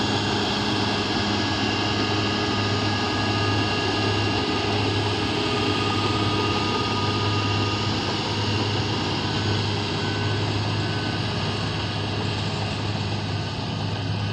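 Komatsu bulldozer's diesel engine running steadily, a constant low drone under a wide wash of mechanical noise.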